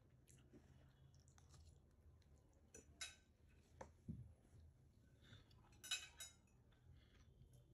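Faint clinks and scrapes of a metal fork against a plate while eating noodles, with a few sharper clinks about three seconds in and a small cluster of them about six seconds in.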